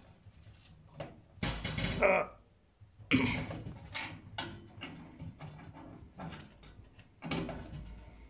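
Screwdriver tightening the terminal screws of an oven heating element: several short metal scrapes and clicks.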